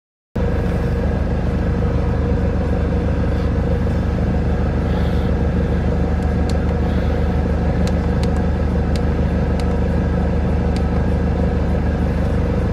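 Volkswagen Vanagon (T3) engine running steadily with an even low hum, heard through the van's open side door. A few faint clicks come in the second half.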